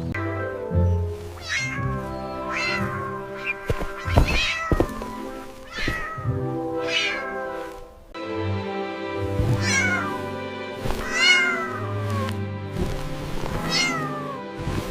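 A cat meowing again and again, about ten short meows that rise and fall in pitch, over steady background music.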